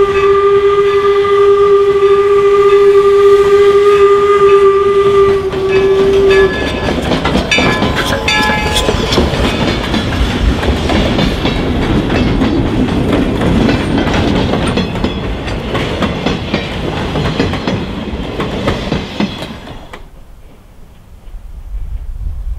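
York 17, a 4-4-0 steam locomotive, blows its steam whistle in one long steady blast that cuts off about six seconds in. The locomotive and its passenger coaches then roll past close by, wheels clacking over the rail joints, until the sound drops away sharply near the end.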